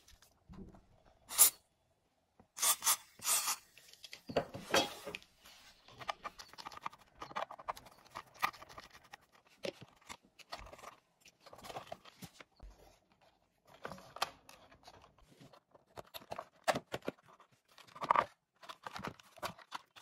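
Hands working on the power-cord clamp and wiring inside an opened plastic vacuum cleaner body: irregular clicks, taps and short scrapes of small parts and a screw against the plastic housing.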